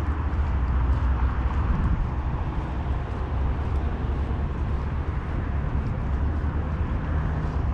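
Steady outdoor street noise dominated by a low rumble, typical of road traffic passing on a wet day.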